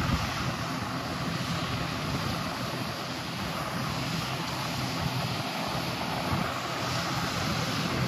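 Steady, even drone of a John Deere combine harvesting soybeans while it unloads into a tractor-pulled grain cart, the machines running at an unchanging pace, with a rushing noise over it.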